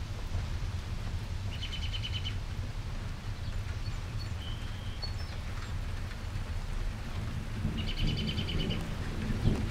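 A songbird gives a short trill twice, about six seconds apart, with a few thin chirps between, over a steady low rumble of wind and storm noise. A louder low rumble swells near the end as thunder begins.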